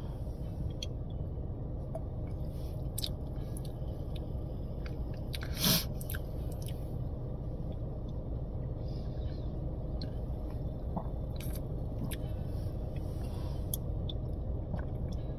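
A man taking one long drink of soda from a glass bottle: faint swallowing and mouth sounds, with one louder sound about six seconds in, over a steady low rumble inside a car.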